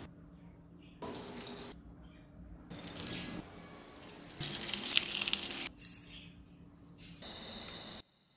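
Whole cloves, black peppercorns and a piece of cinnamon tipped into a ceramic bowl with a short rattle about a second in. Midway, dry bay leaves crackle for about a second as they are torn and crumpled over the bowl; this is the loudest sound.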